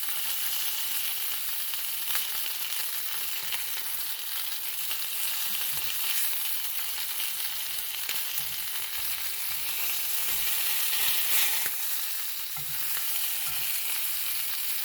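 Boneless, skinless chicken thigh frying in a pan, giving a steady sizzle.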